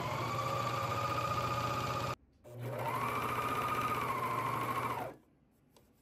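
Electric sewing machine stitching in two runs. Each time the motor speeds up to a steady pitch; it stops about two seconds in, starts again, and stops for good about five seconds in.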